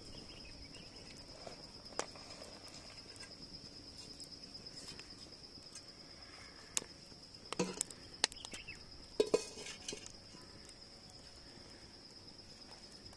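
A steady high insect trill runs throughout, with a few scattered clinks and knocks of pots and cooking utensils in the middle, the sharpest cluster about seven to nine and a half seconds in.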